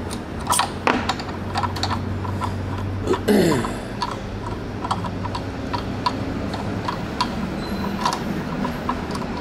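Small metal clicks and clinks as piston and connecting-rod parts are handled and fitted by hand, over a steady low workshop hum. One short falling squeak about three seconds in.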